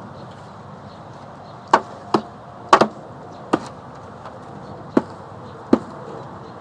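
About seven sharp knocks at uneven intervals, two of them close together: a wooden bee package being banged down hard to jar the bees out into the hive.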